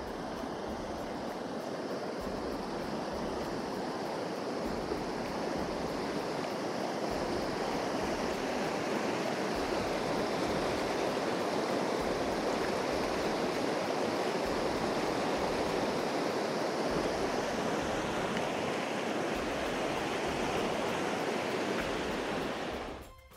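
Fast mountain river rushing over rapids, a steady noise of water that grows louder toward the middle and fades out near the end.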